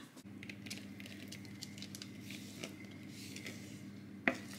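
Thick cake batter being poured from a mixing bowl into a round metal cake tin: faint soft squishing and patter over a steady low hum, with one sharp click near the end.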